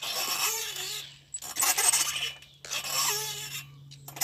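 Nest swing swinging back and forth on its chains, with a rush of air each time it sweeps past, about every second and a half, and short squeaks on the swings.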